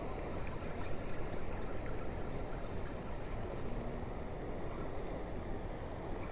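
Steady rush of turbulent water churning through a dam spillway.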